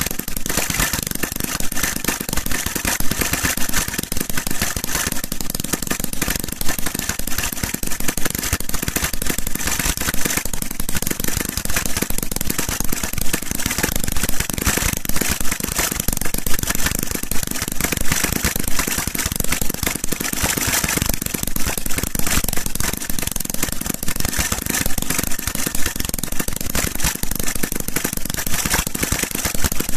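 Prototype VS-SWR pulse-jet rotary engine running: a loud, steady, fast run of sharp pops from its pulsed combustion, with no letup.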